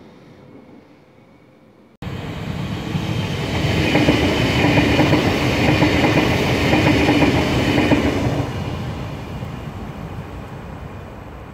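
Euskotren UT900 electric multiple unit passing close by: wheels rumbling and clicking on the rails with a steady hum, loudest as it goes past, then fading as it moves away. The first two seconds hold only a quieter train sound before the loud pass begins abruptly.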